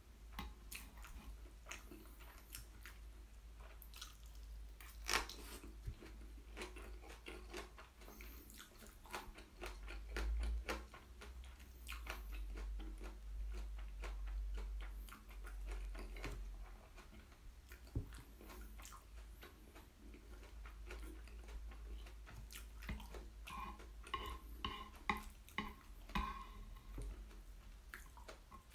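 Close-miked chewing of Chapagetti black bean instant noodles and green onion kimchi, many small wet clicks and smacks of the mouth. Near the end come a few light clinks of metal chopsticks.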